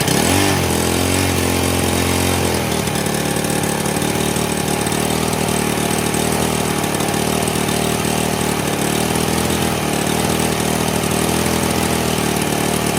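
Honda portable generator's small engine just fired, coming up to speed and then running on choke, its pitch wavering up and down as it hunts. It runs rough, which the owner puts down to the air filter being off.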